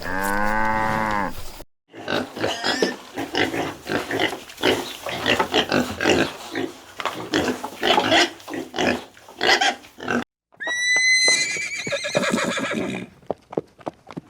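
A run of farm animal calls: a short pitched call at the start, then about eight seconds of rapid, crowded short calls, and a high, drawn-out call near the end.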